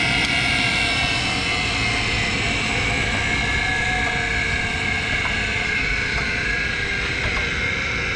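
Acer AGS-1224AHD hydraulic surface grinder running under power: its electric motors, the hydraulic pump unit and the dust collector's blower, give a steady hum with a high whine over it, easing a little in the first few seconds.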